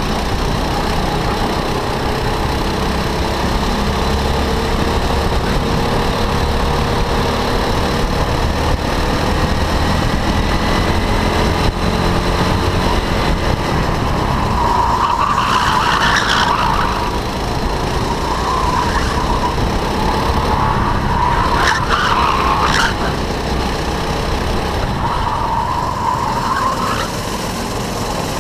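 Go-kart engine running steadily at race pace, heard from onboard the kart, with other karts nearby. A few short tyre squeals come through the corners, about halfway through and again a few seconds later.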